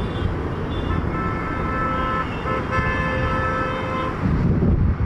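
Boeing 757 touching down and rolling out: a low rumble, mixed with wind on the microphone. About a second in, a steady pitched tone with several overtones starts; it sounds for about three seconds with a brief break midway.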